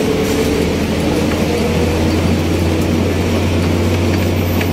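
A steady low mechanical hum over even background noise, with faint steady higher tones above it.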